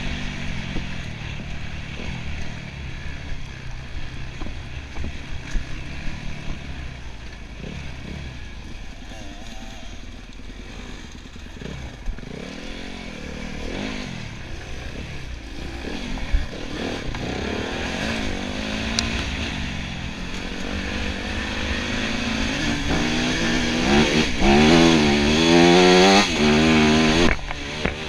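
Enduro motorcycle engine revving up and down under constant throttle changes, its pitch rising and falling. It gets louder, with quick rev swings, over the last few seconds.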